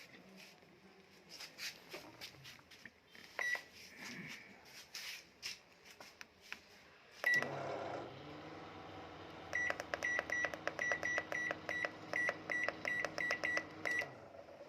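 Microwave oven being tested: light clicks of its keypad and a single beep, then about seven seconds in it starts running with a steady hum. From about nine and a half seconds a quick string of short high beeps, roughly three a second, sounds over the hum, and both stop shortly before the end.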